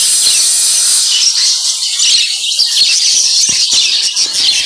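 Many caged pet birds chirping and twittering together in a dense, high chatter. A steady hiss runs under it for about the first second and then stops.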